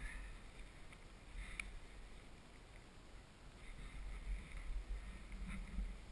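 Faint, uneven low rumble of wind on a helmet-mounted camera's microphone, with light rustling and a few soft clicks from the paragliding harness and gear as the pilot moves.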